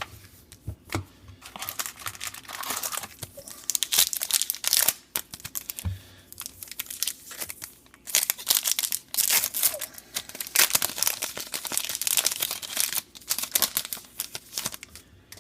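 Foil wrapper of a Topps Star Wars trading card pack being torn open and crinkled in the hands, in two long spells of crackling with a short pause between.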